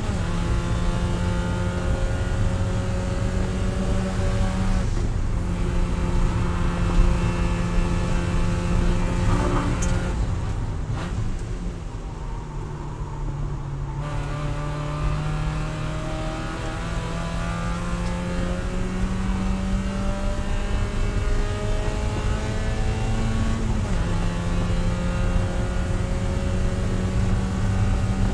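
Spec Miata's four-cylinder engine running at high revs, heard from inside the cockpit. The pitch drops in the middle as the car slows for a corner, climbs slowly as it accelerates out, and steps down at a gear change about three-quarters of the way through.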